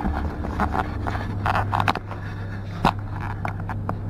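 Rustling and scraping of a cardboard-covered paper document being handled and slid onto a dusty concrete ledge, followed by one sharp tap about three seconds in and a few lighter clicks near the end. A steady low hum sounds underneath.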